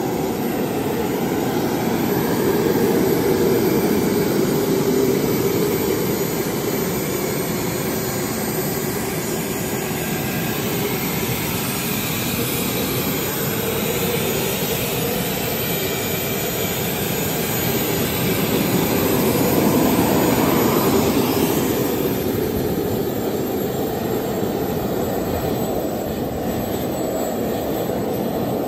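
The Rolls-Royce Allison turboshaft engine of an MTT Y2K turbine superbike running: a steady loud rush with a thin high whine. It gets louder twice, a few seconds in and again about two-thirds of the way through.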